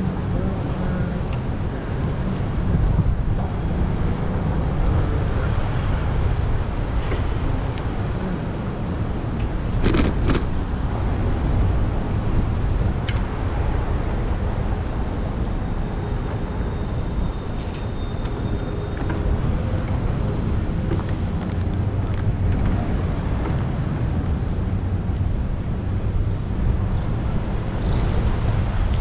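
Steady rumble of wind on the microphone of a moving bicycle, with city road traffic around it. A sharp click sounds about ten seconds in and another about thirteen seconds in.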